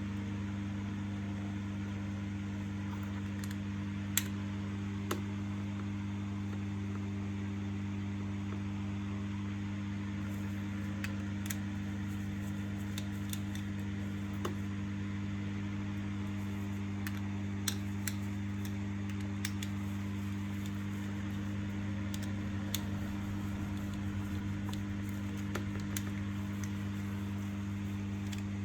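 Steady low electrical hum with light clicks and taps scattered through it, about a dozen, as small parts are handled.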